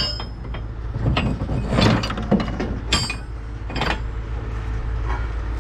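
Rusty steel rods and bolts in a pile of scrap clinking against each other and against other scrap metal as they are handled: several sharp metallic clinks, the loudest about two and three seconds in, over a steady low hum.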